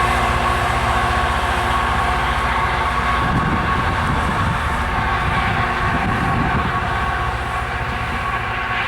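Loram RG400-series rail grinder's diesel engines running steadily as the machine rolls on the track: a constant drone with several steady tones over a low rumble, easing off slightly near the end.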